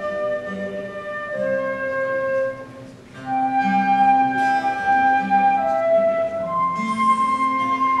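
Transverse flute playing a melody in held notes over acoustic guitar accompaniment. The flute breaks off briefly about three seconds in, then comes back and holds a long high note near the end.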